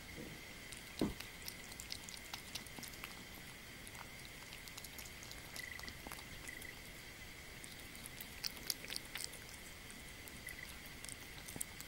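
Kitten eating boiled meat and egg from a ceramic bowl: small wet chewing and lapping clicks, with a louder thump about a second in and a quick run of clicks near the end.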